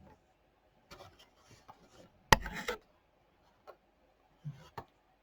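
Handling of packaged toy cars: scattered small clicks and rubbing, with one sharp click about two seconds in followed by a brief rustle.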